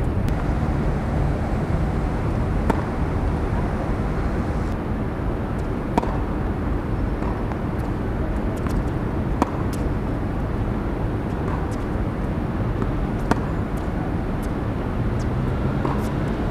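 Tennis balls struck by rackets during a rally: single sharp pops a couple of seconds apart, over a steady background noise.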